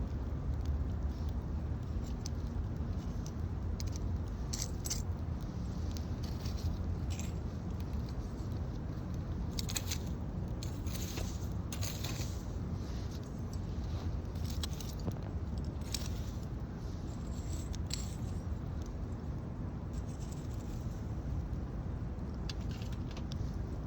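Wood campfire crackling, with scattered sharp pops and snaps that bunch together in the middle, over a steady low rumble.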